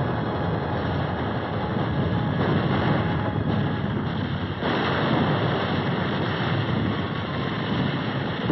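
Steady rushing noise of surf and wind over a low rumble, on a muffled old film soundtrack; the hiss grows brighter about four and a half seconds in.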